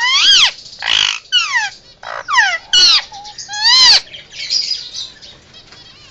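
Indian ringneck parakeet giving a run of loud calls, each a quick rising-then-falling screech, about six in the first four seconds, then softer chattering.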